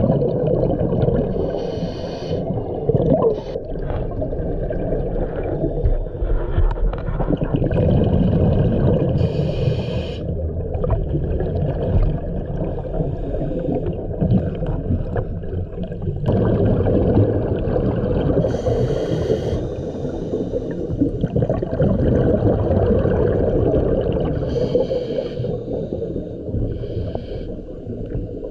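Scuba diver breathing through a regulator underwater: a hissing inhale every several seconds, over a continuous rumble and gurgle of exhaled bubbles.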